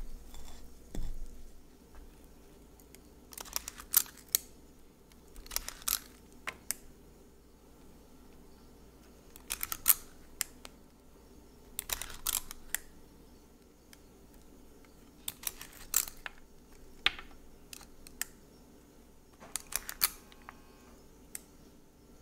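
Metal spring-loaded cookie scoop clicking and scraping as it portions and releases mounds of cookie dough onto a baking sheet: short clusters of sharp clicks about every two to three seconds.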